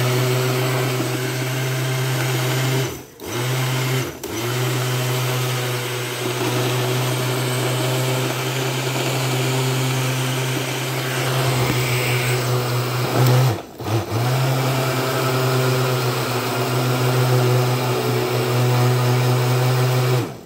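Oster countertop blender motor running steadily as it blends a smoothie. It cuts out briefly about three seconds in, again a second later, and once more a little past the middle, then switches off at the very end.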